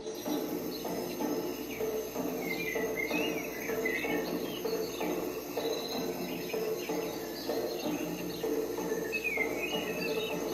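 Jungle ambience track with a steady chorus of crickets and other insects over a low pulsing sound. Chirping bird calls come in about two and a half seconds in and again near the end.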